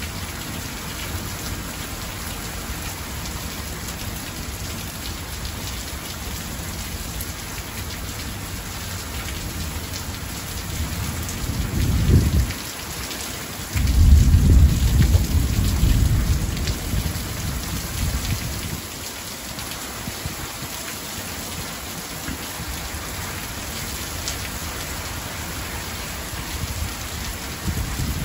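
Heavy rain pouring steadily during a severe thunderstorm. About halfway through, a deep roll of thunder builds, breaks off briefly, then returns as the loudest sound and rumbles away over several seconds.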